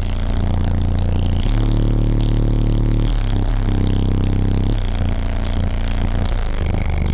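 Deep bass notes of music played very loud through a car audio system with six Resilient Sounds Platinum 15-inch subwoofers, the note changing every second or two, with a rattling, hissy noise over the top.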